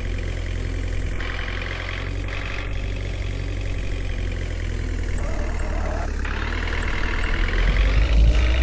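JCB 3DX backhoe loader's diesel engine running steadily, picking up speed and getting louder near the end.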